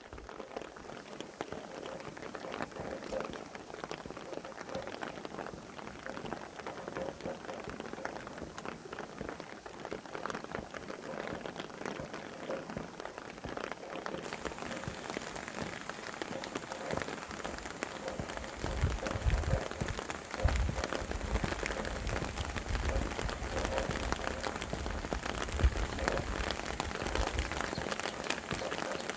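Steady rain falling and pattering on surfaces as a dense mass of fine drops. From about two-thirds of the way through, low gusts of wind rumble in.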